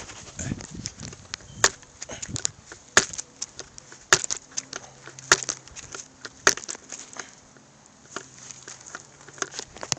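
Crutches and a foot moving over dry grass and twigs: irregular sharp crunches and taps, about one every second or so, mixed with camera-handling knocks.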